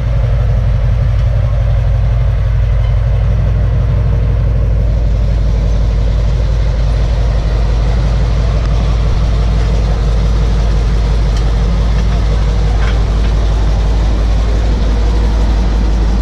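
M18 Hellcat tank destroyer's newly rebuilt nine-cylinder radial engine running steadily and loudly; about four seconds in it picks up as the tank pulls out under way.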